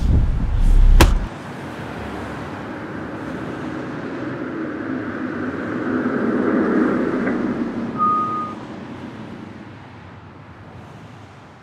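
Car interior rumble that cuts off about a second in, then a car driving by on a street: its engine and tyre noise swell and fade away. A short high beep sounds once partway through.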